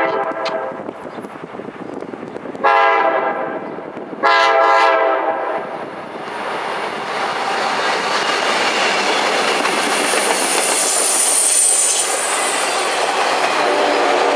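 F-unit diesel locomotives' air horn sounding: the tail of one blast right at the start, then two more blasts about three and four and a half seconds in. The locomotives then pass and the passenger cars roll by with a steady rumble and wheel clatter, and a high wheel squeal around ten to twelve seconds in.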